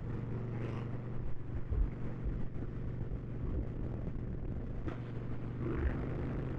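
Harley-Davidson Dyna's V-twin engine running at a steady cruise, a low even drone.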